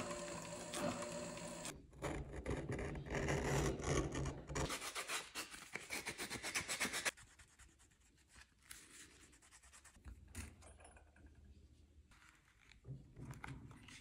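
Leather sewing machine stitching a tooled leather sheath, a fast even run of needle strokes that stops suddenly about seven seconds in. After it, faint rubbing of a canvas cloth on the leather edge.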